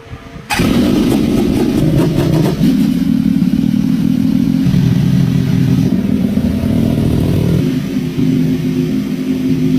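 Restored motorcycle engine that had been pulled from the sea, coming in suddenly about half a second in and running, its engine speed stepping between a few steady levels as the throttle is blipped.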